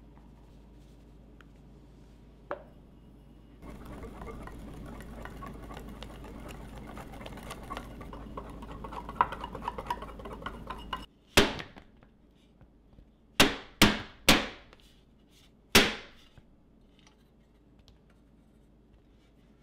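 A small whisk scraping and clinking in a glass bowl as it stirs a thick orange-juice and powdered-sugar glaze. Then a metal madeleine pan is rapped down five times in sharp, loud knocks to knock out madeleines that have stuck in the mold.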